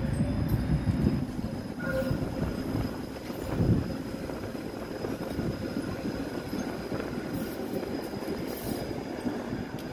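A two-car tram rolling past close by, its wheels rumbling steadily on the rails, with a brief wheel squeal about two seconds in and a louder knock from the wheels on the track a little later.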